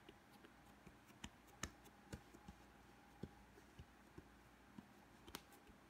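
Near silence with a few faint, scattered taps and knocks: hands pressing and patting bread dough into a flat round on a plastic cutting board.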